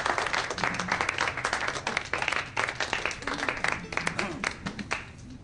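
A small crowd applauding, with voices murmuring underneath; the clapping dies away near the end.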